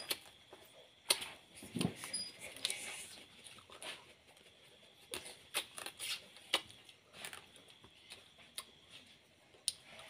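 Close-up mouth sounds of eating crab: sucking and chewing meat from a crab leg, with irregular wet clicks and smacks.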